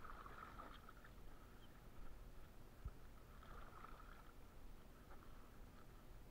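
Faint dripping and splashing of water as a wet gill net is pulled hand over hand out of the water into a small boat, with a short low knock a little under three seconds in.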